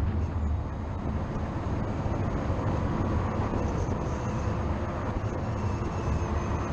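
Car at speed on a race track heard from an exterior-mounted camera: a steady rush of wind and tyre noise with a low rumble underneath and no clear engine note.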